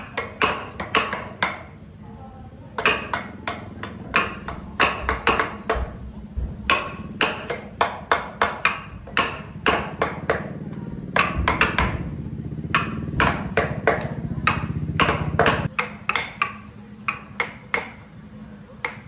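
Rapid, irregular sharp knocks of something being struck hard, several a second in short runs with brief pauses. A low hum sits under the knocks for a few seconds in the middle.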